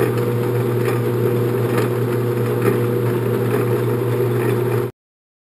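A 10-inch Sheldon metal lathe running steadily under power, its motor and gear train humming with faint ticks, then cutting off suddenly about five seconds in.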